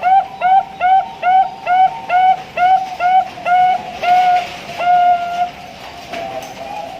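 Zebra dove (perkutut bangkok) singing: a rapid series of short, clear cooing notes, about two and a half a second, that gradually slow and lengthen and end in one long held note about five seconds in, followed by softer, wavering coos.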